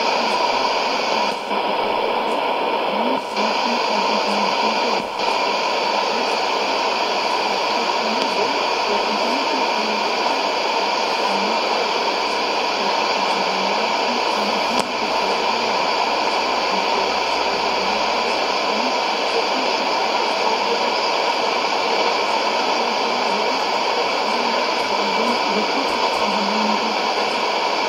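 Sony ICF-2001D shortwave receiver's speaker playing a weak AM signal on 6100 kHz: steady hiss and static with a faint, mostly unintelligible broadcast voice underneath. There are a few brief dropouts in the first five seconds.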